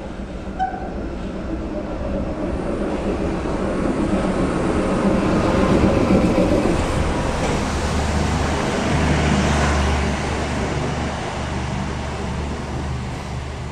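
KTM Class 26 diesel-electric locomotive running past with its engine drumming low and steady, loudest as the cab goes by about six seconds in. The passenger coaches follow, rolling along the track with a steady rumble that slowly fades.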